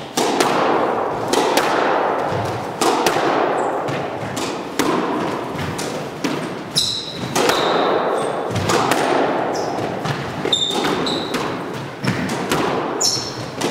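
Squash rally: racquets striking the ball and the ball hitting the court walls, a sharp hit about every second, each ringing on in the court's echo. A few short, high shoe squeaks on the wooden floor come in between.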